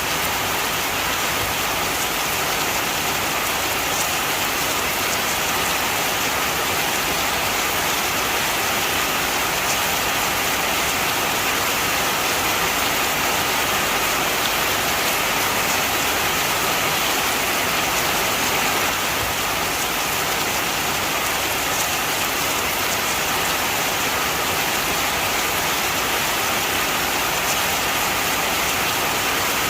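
Heavy rain falling steadily, a dense even hiss with faint individual drop ticks.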